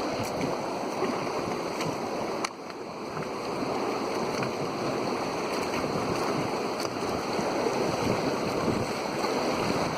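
Rushing river water around an inflatable raft as it runs downstream, a steady noise that dips briefly about two and a half seconds in.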